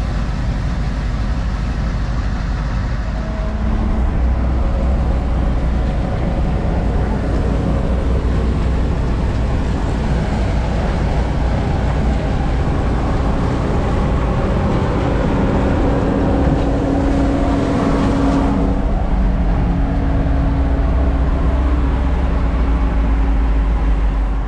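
Heavy diesel harvest machinery running steadily under load, a continuous low engine drone that grows a little louder about four seconds in, with a steady hum joining it in the second half.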